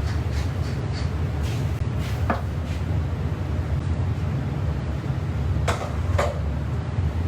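Steady low rumble of kitchen background noise, with three light knocks or clinks, one a little over two seconds in and two close together near the end.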